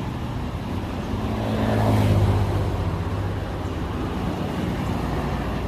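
A motor engine running steadily, growing louder to a peak about two seconds in and then easing off, as of a vehicle passing close by.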